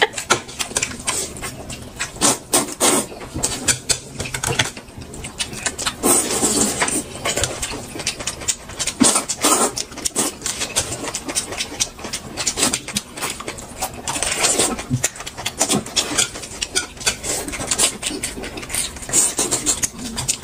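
Someone eating close to the microphone: a rapid, irregular run of chewing and smacking sounds, louder in a few patches.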